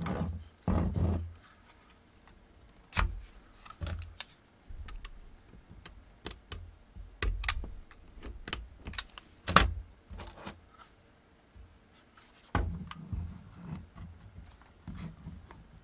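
Hands working the plastic shell of a Black & Decker Gyro cordless screwdriver and a small utility knife cutting through its label sticker: irregular clicks, taps and light knocks of plastic and metal, the sharpest about three, seven and a half and nine and a half seconds in.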